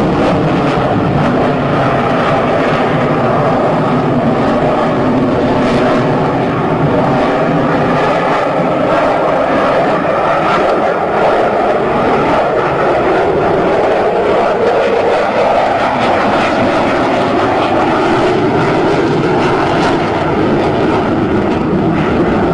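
Aircraft engine noise, loud and steady, with several tones that drift slowly in pitch; it stops abruptly at the end.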